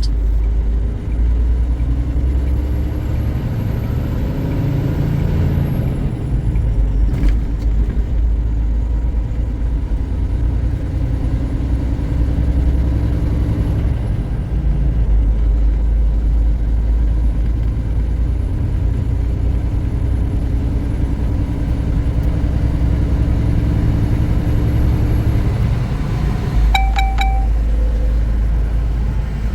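Semi-truck cab at highway speed: steady low rumble of the diesel engine and road noise, the engine note drifting slowly up and down. A short electronic beep sounds once near the end.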